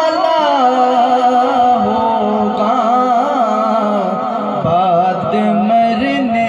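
A man singing an Urdu naat unaccompanied into a microphone, drawing out one line in a long wavering melisma, over a steady lower drone.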